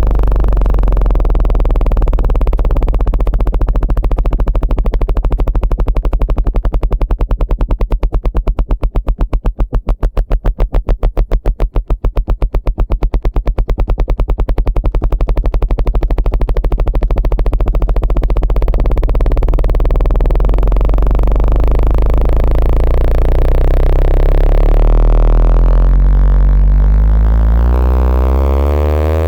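Synthetic water-eject tone for clearing water from a phone speaker: a loud, deep tone that pulses rapidly. Near the end it turns into a sweep rising in pitch.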